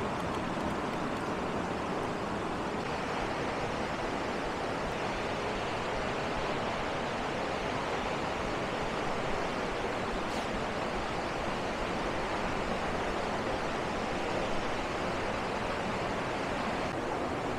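Steady rush of a fast mountain river running over boulders and rapids.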